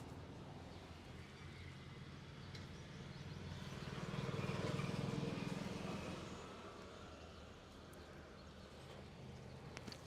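Street traffic noise under a steady low engine hum, with a passing vehicle growing louder and fading again about four to six seconds in.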